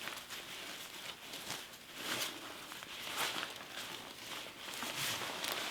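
Soft, irregular rustling and brushing of a fabric hair-dryer bonnet and hair as they are handled and its straps are pulled around.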